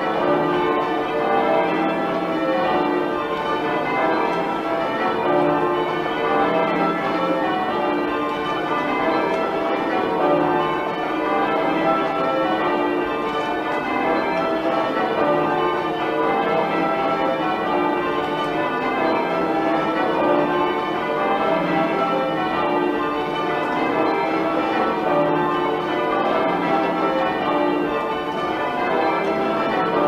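Christchurch Priory's church bells being change-rung full-circle, an unbroken, even stream of bell strokes in rotating order, heard from the ringing chamber beneath the bells.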